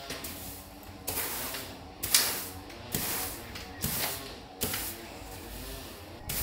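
Wide push broom sweeping a dry lime-and-sand mortar mix across a flagstone floor to fill the joints: a gritty scraping stroke about once a second, six strokes in all.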